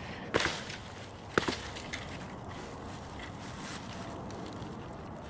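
A wooden tree branch cracking as it is bent under hand and foot to break it: two sharp cracks about a second apart.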